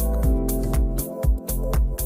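Background electronic music with a steady beat, bass and sustained synth notes.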